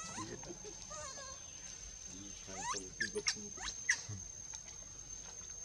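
Young monkey making high squeaky calls: soft wavering calls at the start, then a quick cluster of sharp rising squeals about halfway through, over a steady high-pitched whine.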